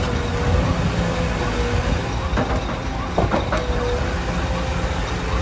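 Diesel engines of excavators and trucks running steadily, with a wavering whine above the rumble and a few sharp clanks a little past the middle.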